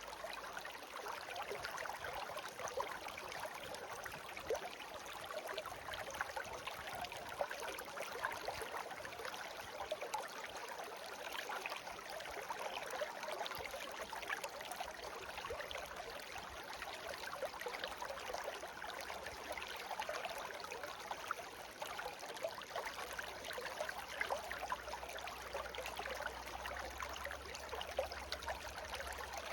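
Shallow stream babbling and trickling over stones, a steady bright burble full of small splashes and drips.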